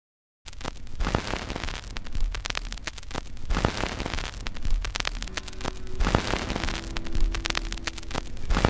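Crackling static noise full of clicks, with a low thump about every second and a quarter, opening a music track; faint held tones come in about five seconds in.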